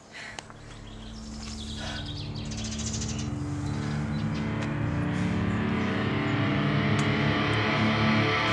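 Background music fading in: sustained chord tones grow steadily louder, the slow build-in of a rock track. Birds chirp faintly near the start.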